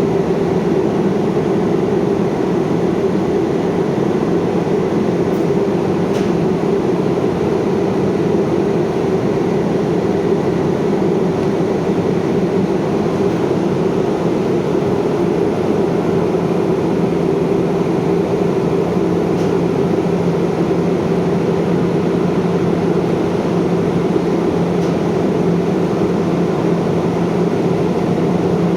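Radial (centrifugal) smoke-exhaust fan running steadily at speed on test: a loud, even rush of air with a steady low hum underneath.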